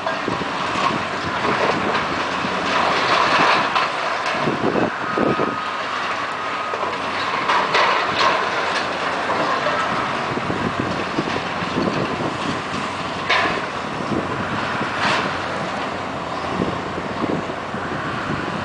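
Demolition excavators tearing down a stadium's concrete and steel structure: a continuous clatter of crashing debris and scraping metal, with sharp clanks now and then and a short squeal about five seconds in.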